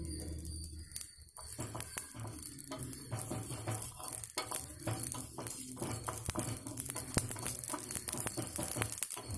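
Wooden spatula stirring and scraping dry whole spices (coriander seeds, cardamom, cloves) around a hot metal kadai, with many small irregular clicks and rattles of seeds against the pan. The spices are crackling as the pan heats during dry roasting.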